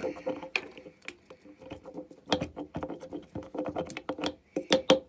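A mechanical pencil being clicked over and over to push out its lead: many quick, irregular clicks.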